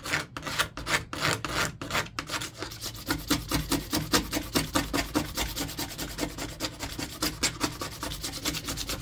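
Box cutter blade scraping leftover primer off a fiberglass gel coat surface, short quick strokes in a steady run that speeds up after a couple of seconds.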